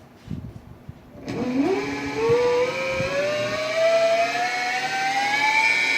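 Direct-drive brushless (BLDC) motor spinning up on its controller during a test run: a pitched electric whine starts about a second in, rises steadily in pitch as the motor gains speed, and holds a steady pitch near the end. A couple of faint knocks come before it starts.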